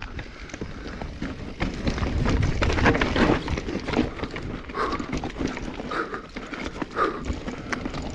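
Mountain bike rattling and clattering over a rough, rocky trail, heard through a chest-mounted camera, with the rider's heavy panting breaths about once a second in the second half.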